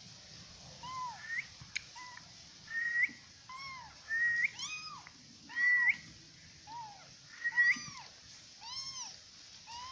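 Young kitten mewing repeatedly, about one short high-pitched mew a second, some arching and some rising at the end.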